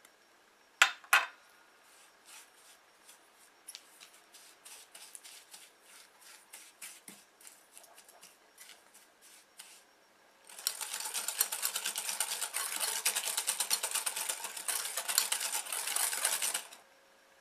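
Two sharp knocks on a glass mixing bowl, then a spatula scraping softened butter and granulated sugar around the bowl in light, scattered strokes. About ten seconds in, fast vigorous mixing sets in, a dense rapid clatter of strokes against the glass for about six seconds that stops suddenly.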